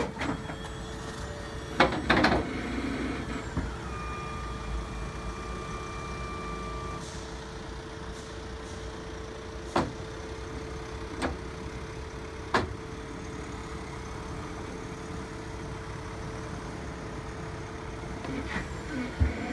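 Hydraulic drive of an Algema Blitzlader 2 tilting car-transporter bed on a Ford Transit running with a steady whine over the idling truck, as the bed tilts down and a car is drawn up onto it. Several sharp metal clanks, the loudest two about two seconds in, with more around the middle and near the end.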